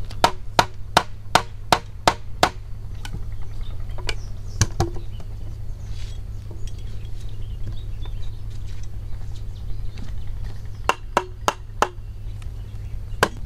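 Hammer striking a bamboo frame: a quick run of about seven blows at roughly three a second, a couple more a few seconds in, then a pause and a short run of four blows near the end. A steady low hum runs underneath.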